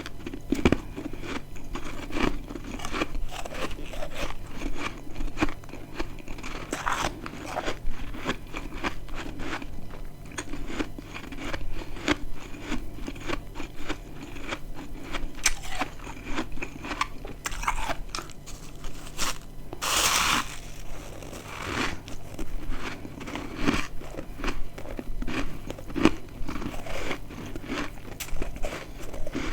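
Close-up biting and chewing of dry, crispy chunks of freezer frost, many crisp crunches and crackles in quick succession, with one louder crunch about twenty seconds in.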